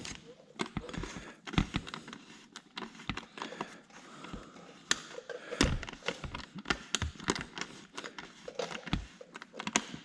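Irregular light clicks, taps and knocks of metal parts and bolts being handled as a radiator brace is lined up and fitted to a dirt bike.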